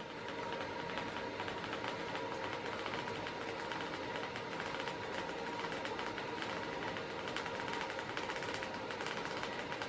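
Hand-cranked Kinora viewer running: a rapid, even clatter of the reel's picture cards flicking past the stop as the spool turns, over a steady whirr from the mechanism.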